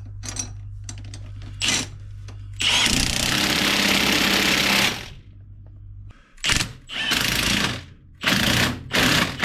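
Impact wrench tightening the drag link adjuster clamp bolts: one long run of about two seconds, then four short bursts near the end. A steady low hum runs under the first half.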